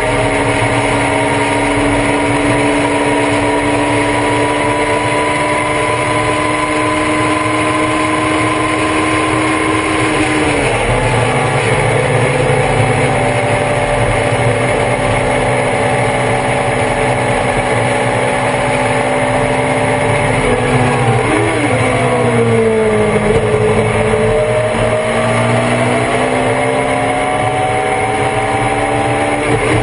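On-board sound of the Thunder Roadster race car's engine at full throttle, its pitch climbing slowly before an upshift about a third of the way in. After a steady stretch the driver lifts and downshifts with a quick throttle blip about two-thirds of the way in. The revs bottom out through a corner, then climb again under acceleration, with another shift at the very end.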